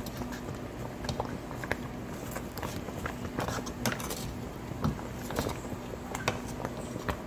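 Wooden spoon stirring a steaming pot of thick ogbono soup with greens, giving irregular clicks and small wet pops from the spoon and the simmering soup. A steady low hum runs underneath.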